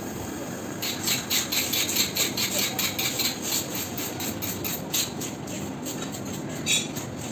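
Hand-held plastic fish scaler scraping scales off a long silver fish in quick rhythmic strokes, about five a second, over a steady low background noise; it pauses, then one sharper scrape comes near the end.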